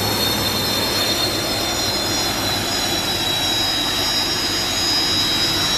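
Jet turbine engine of an unlimited hydroplane, a Lycoming T55 turboshaft like a Chinook helicopter's, running with a steady high-pitched whine over a dense rushing roar.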